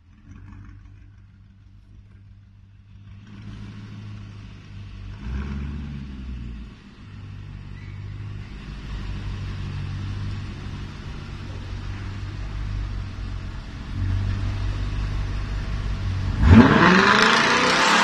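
Audi RS5 Sportback engine running through an ARMYTRIX aftermarket exhaust: a low, steady idle with a short blip of the throttle about five seconds in. It steps up louder near the end, then revs hard with a sharply rising pitch, the loudest part.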